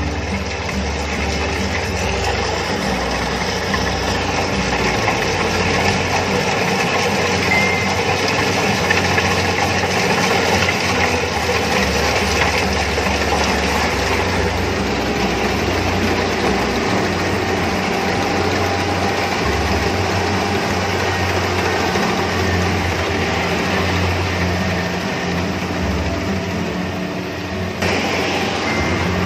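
Rice combine harvester running steadily at close range as it cuts standing rice, its engine hum mixed with the dense mechanical noise of the header and threshing gear.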